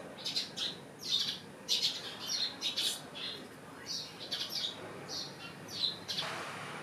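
Birds chirping: a run of short, high chirps, about two or three a second. A soft rustle comes near the end.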